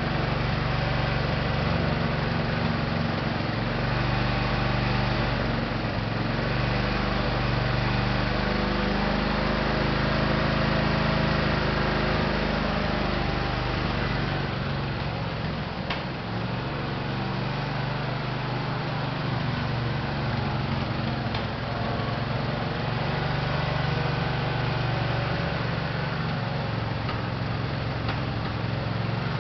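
Craftsman GT5000 garden tractor engine running steadily, freshly restarted and smoking as it burns off oil. Its note shifts slightly about halfway through.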